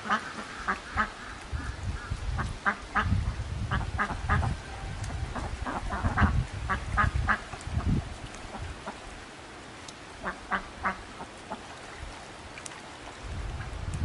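Ducks quacking in short, repeated calls, most of them in the first eight seconds and a few more around ten seconds in. Under the calls is a low rumble of wind on the microphone.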